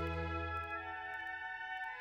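Slow background music of long, held chords; the low bass note drops out a little under a second in.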